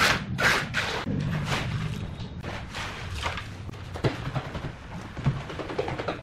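Gloved hands patting and smoothing wet concrete: irregular wet slaps and swishes, closer together at the start and then about one a second.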